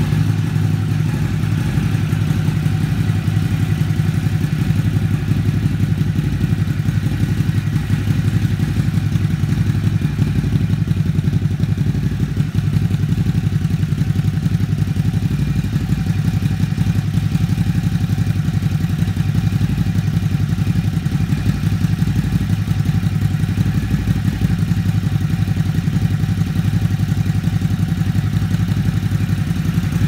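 Ducati Hypermotard 950's 937 cc L-twin idling steadily through an SC Project S1 slip-on muffler, with no revving.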